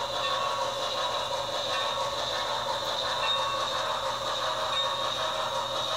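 HO scale model freight train, hauled by a New York Central J-1 Hudson 4-6-4 locomotive, running steadily along the track with an even mechanical rolling noise.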